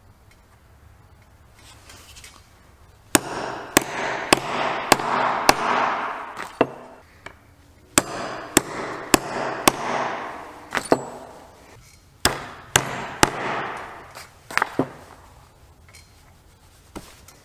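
A hammer striking a pronged leather stitching chisel, punching stitch holes through a leather knife sheath on a workbench. The blows come in three runs of about half a dozen, roughly two a second, with a ringing between blows.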